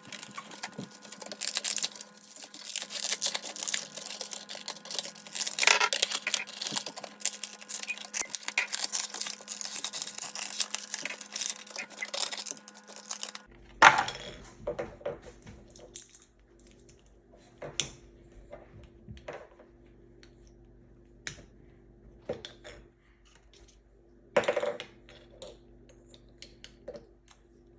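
Plastic and cardboard packaging crinkling and rustling as a Funko Snap toy is unboxed. After that come scattered sharp clicks and taps of small plastic toy parts being handled.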